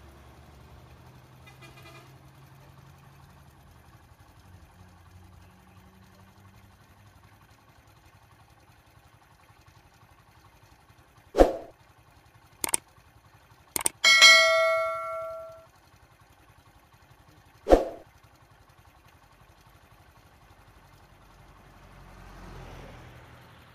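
Subscribe-button sound effects: a few sharp mouse clicks, then a bright notification-bell ding ringing out for about a second and a half, then one more click. Faint road-traffic hum lies underneath, with a vehicle approaching near the end.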